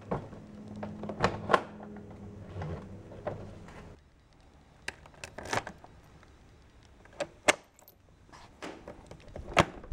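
A hard plastic motorcycle top case being latched onto its rack: a series of sharp clicks and knocks, with keys jangling in the case's lock near the end.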